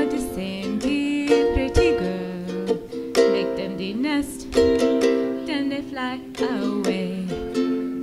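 Ukulele strummed in steady chords while a woman sings the melody into a microphone.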